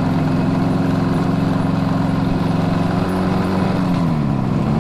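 Suzuki GT250's air-cooled two-stroke parallel-twin engine running at steady revs while the bike is ridden. Its pitch falls as the revs drop about four seconds in.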